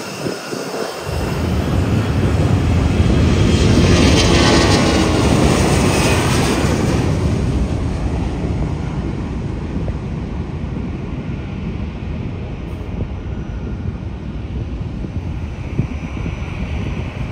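Airbus A340 four-engine airliner taking off, its jet engines at takeoff power. The engine noise builds over the first couple of seconds and is loudest around four to six seconds in as the jet passes, with a sweeping, phasing hiss. It then settles into a steady rumble as the aircraft climbs away.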